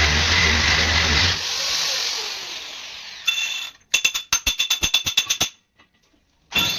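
A steady noise fades away, then a rapid run of about a dozen sharp mechanical clicks over a second and a half, followed by a brief silence.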